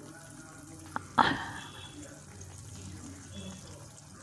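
Fish curry gravy simmering in a steel pan, with a faint bubbling as it thickens. About a second in there is one brief, louder sharp sound that quickly dies away.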